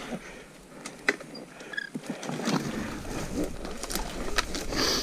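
Crackling and rustling of underbrush and twigs with scattered sharp snaps as an electric dirt bike is eased down a steep, wooded slope. A low rumble comes in about two and a half seconds in.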